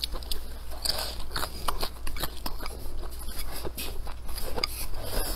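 Close-up chewing of crunchy stir-fried velvet antler mushrooms: a quick, irregular run of short crisp crunches and mouth clicks.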